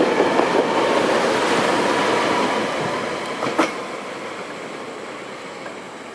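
SEPTA Silverliner electric commuter train rolling past on its steel wheels, its rumble fading steadily as the train pulls away. One sharp clank stands out about three and a half seconds in.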